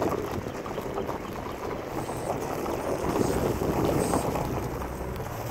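Wind buffeting the microphone from inside a slowly moving car: a steady low rushing rumble.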